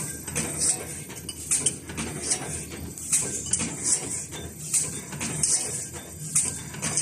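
HVAC panel filter pleating machine running, its mechanism clanking metallically about once or twice a second over a steady low rumble.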